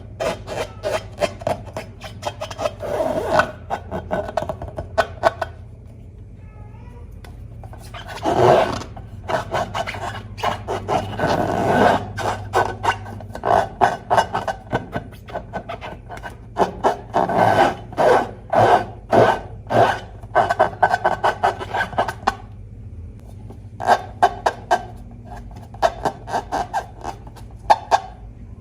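Slime being squeezed and worked by hand: rapid sticky crackling and squelching clicks that come in bursts, with a couple of brief pauses, over a steady low hum.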